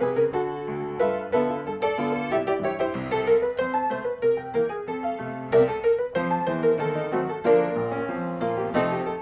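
Background piano music, a quick run of struck notes in a light melody.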